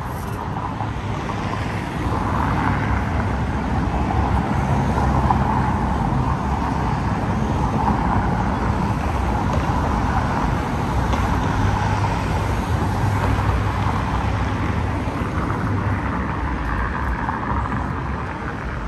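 Motor vehicle traffic noise, a steady rumble and hiss that swells about two seconds in and eases off near the end, as vehicles pass.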